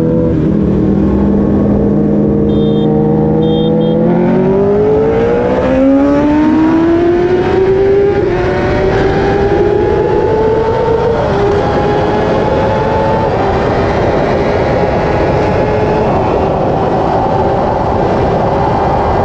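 2017 Kawasaki ZX-10R's 998 cc inline-four pulling hard at full throttle on a top-speed run, heard from the rider's seat. It holds steady for a few seconds, then the revs climb sharply. After that they keep rising more slowly, with a brief dip near the middle like a gear change. Heavy wind rush from riding at well over 100 mph runs under the engine throughout.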